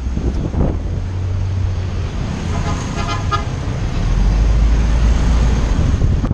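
Road traffic with a steady low rumble from moving vehicles, and a short vehicle horn toot about three seconds in.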